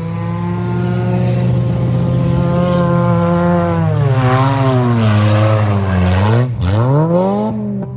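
Battered Honda sedan derby car driven hard through mud and slush, its engine revving steadily and then falling and rising in pitch as the throttle comes off and back on. The pitch dips sharply about six and a half seconds in, then climbs again. A rush of tyre and mud spray comes around the middle.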